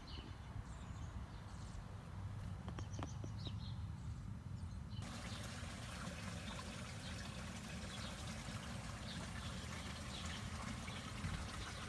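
Short, scattered bird chirps over a low rumble; about five seconds in the sound cuts abruptly to a steady hiss of water.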